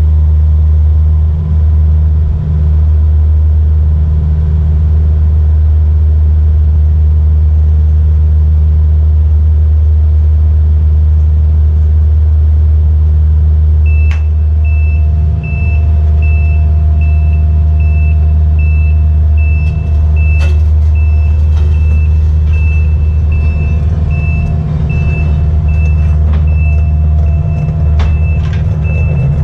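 Kubota U55-4 mini excavator's diesel engine running steadily, with a few sharp knocks. About halfway through, a backup alarm starts beeping evenly, roughly one and a half beeps a second.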